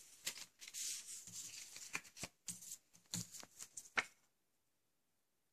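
Paper and thin card leaflets being handled, rustling and sliding against each other with a few sharp taps. The rustling stops about four seconds in.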